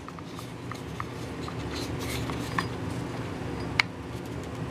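Plastic string-trimmer head being handled and pressed down onto the trimmer's gearbox shaft: faint scraping and small clicks, with one sharper click near the end.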